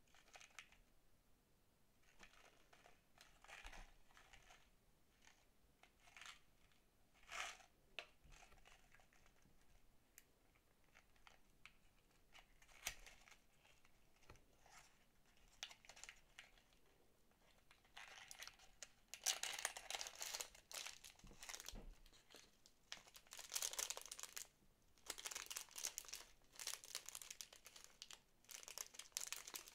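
Quiet rustling and scraping of a small paperboard candy box being opened by hand, then louder crinkling of a thin clear plastic bag of small chocolate balls being handled, in several bursts.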